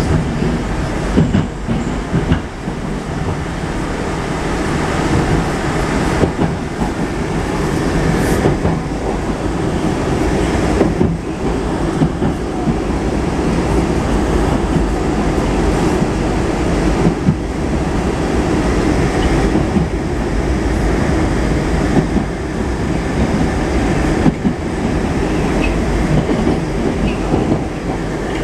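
81-765.2 metro train running at speed, heard from inside the passenger car: a steady, loud rumble of wheels on rails, with irregular clacks over rail joints.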